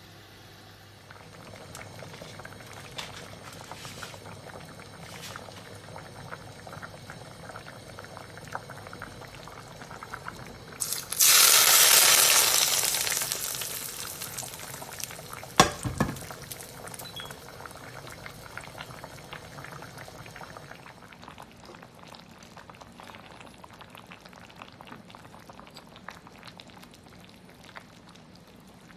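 Fish and pickled-vegetable hotpot simmering in a ceramic pot with a steady crackle of bubbling. About eleven seconds in a loud sizzle starts suddenly and fades over a few seconds, as hot oil hits the garlic, chilli and spring onion piled on top, followed by a single sharp knock.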